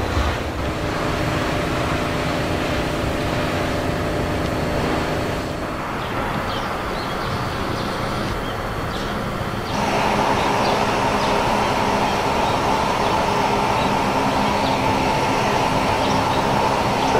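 Steady mechanical rumble and hum with several faint steady tones. It shifts abruptly about six seconds in and again about ten seconds in, getting louder the second time.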